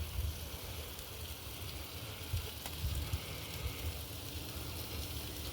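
Chicken thighs and potatoes sizzling on a barbecue grill: a steady hiss, with a low uneven rumble underneath.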